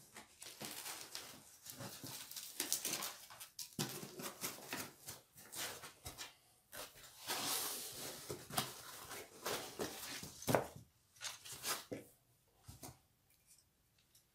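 Rustling and crinkling of plastic wrapping and packaging, with short knocks and scrapes, as 3D printer parts are handled and lifted out of their box; the sound thins out near the end.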